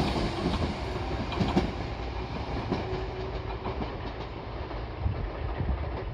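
Kotoden electric train of 1070 and 1100 series cars running away over the track, its wheels clicking over the rail joints. The rumble fades steadily as the train recedes.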